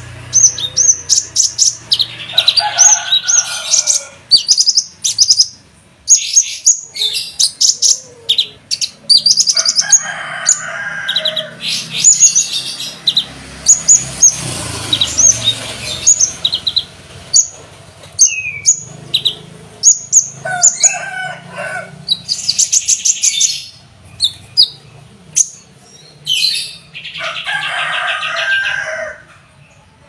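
Kolibri ninja (Van Hasselt's sunbird) singing without pause: fast runs of high, sharp chirps and trills, broken by longer, lower warbled phrases. The song is full of mimicked 'isian' phrases, among them the song of the grey-cheeked bulbul (cucak jenggot).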